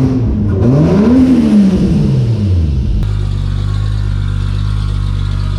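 Turbocharged Vortec 4200 inline-six in a Chevrolet Trailblazer revved once, its pitch rising for under a second and falling back, then settling into a steady idle about three seconds in.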